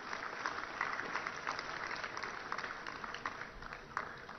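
Audience applause: many hands clapping in a dense, irregular patter that thins out near the end.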